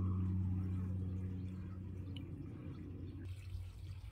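A steady low hum that slowly fades, with a fainter, higher hum above it that drops away about two seconds in.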